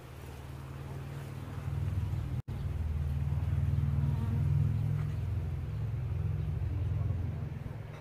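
A low droning hum that swells over the first couple of seconds and eases off near the end, cut by a brief dropout about two and a half seconds in.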